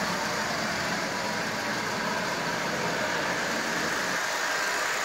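Lionel O-gauge electric toy locomotive running steadily at 40% power while pulling eight cars around three-rail tinplate track: an even whir of the motor and rumble of wheels on the rails.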